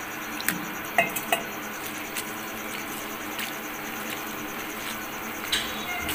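Water poured into a steel bowl of poha (flattened rice), then a hand swishing and squishing the soaked flakes as they are washed. A few light clicks come through, the clearest about half a second and one second in, and another near the end.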